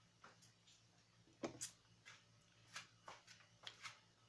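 Near silence broken by scattered soft clicks and smacks of a person eating by hand, chewing and lip-smacking, the loudest about a second and a half in. A faint steady hum sits under it.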